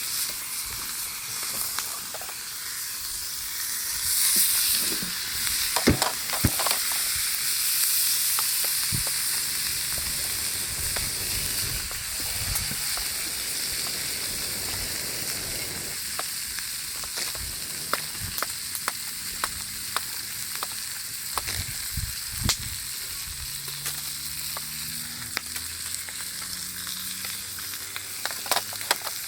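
Steady sizzling hiss at a campfire, with scattered sharp pops, and a louder stretch of sizzling a few seconds in.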